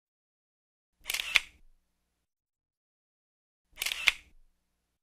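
Camera shutter click sound effect, heard twice, about a second in and again about four seconds in. Each is a brief rattle of small ticks ending in one sharp click.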